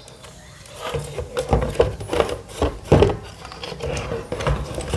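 Top cover of a Harman Kardon Onyx 3 speaker being lifted off its plastic housing by hand: irregular clicks, knocks and rubbing of plastic and grille. The sounds start about a second in.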